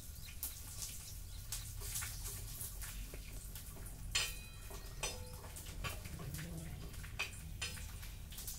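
Steel ladle stirring and scraping in a metal pan on a gas stove: scattered light clinks and scrapes, with one louder ringing clink about four seconds in, over a low steady hum.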